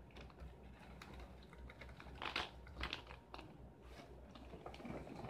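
An open cereal box and its plastic inner bag handled, giving a few short, faint crinkly rustles and clicks between about two and three and a half seconds in.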